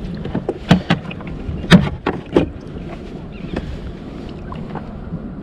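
A handful of sharp knocks and clacks on a fishing kayak, the loudest about 1.7 seconds in, then a few faint ticks, over steady wind and water noise.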